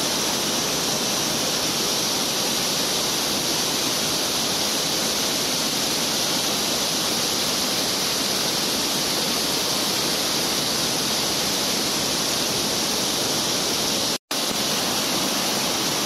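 Steady rushing of water pouring over a concrete weir, with a split-second dropout to silence about 14 seconds in.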